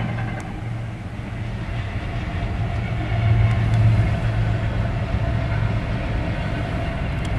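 CSX diesel locomotives hauling a double-stack container train pass with a steady low drone, loudest about three to four seconds in as the locomotives go by.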